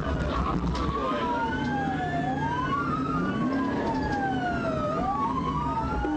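Police car siren on wail, rising and falling slowly about every two and a half seconds, heard from inside the pursuing patrol car over its engine and road noise.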